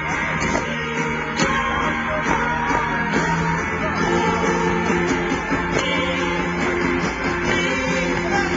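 Rock band playing live, with strummed guitars over a steady drum beat, heard from the crowd.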